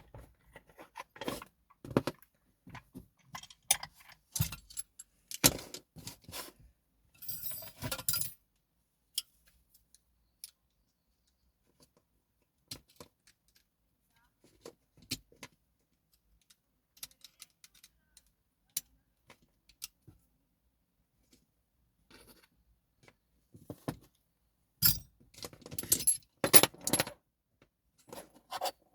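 Small metal clicks, scrapes and rattles of a TESA T60 dimple lock cylinder being taken apart, with parts handled and set down. The clicks come thick in the first several seconds, thin to scattered ticks in the middle, and bunch up again near the end.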